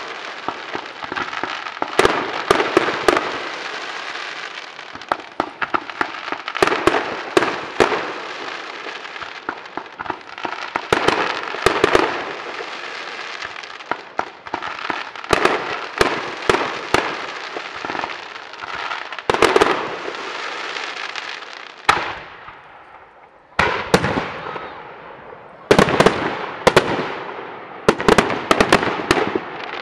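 Aerial fireworks display: shells launching and bursting, many sharp bangs in quick succession over a continuous rushing noise, with a brief lull about two-thirds of the way through before more bangs.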